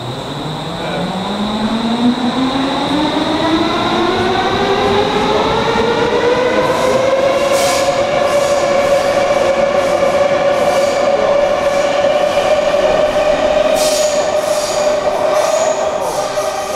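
Stockholm metro C30 train accelerating away from the platform: the traction motors whine, rising steadily in pitch for about eight seconds and then holding steady. From about halfway on, quick clicks of the wheels over the rails sound as the cars pass.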